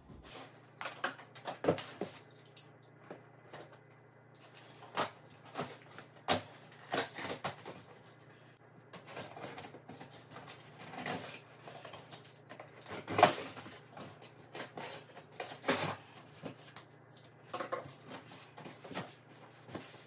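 A taped cardboard box being opened: a utility knife cutting through packing tape, then the flaps and contents handled, with scattered irregular taps, knocks and rustles.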